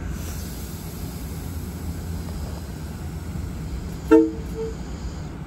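Steady low rumble of a train, with a short horn toot about four seconds in: one brief two-note blast followed by a shorter second one.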